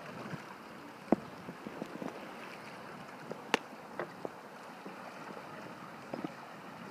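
Choppy lake water lapping, under a steady hiss of wind and small waves, with a few sharp slaps or knocks scattered through, the loudest about a second in and about three and a half seconds in.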